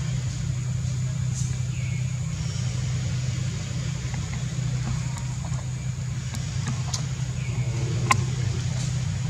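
Steady low mechanical hum, like an idling motor, with a few faint clicks, the sharpest about eight seconds in.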